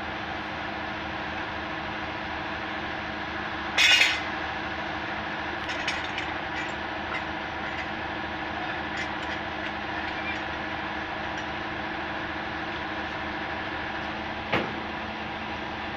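Heavy diesel machinery running steadily at a constant engine speed, with a loud metallic clank about four seconds in, a few light clinks after it, and another sharp knock near the end.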